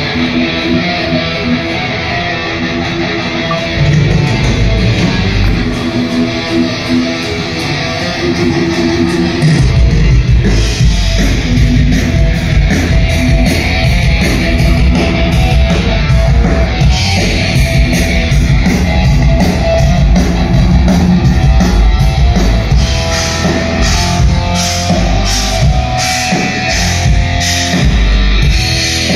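Background rock music led by electric guitar. It gets louder and heavier about four seconds in, and again near ten seconds, with a stronger low end from then on.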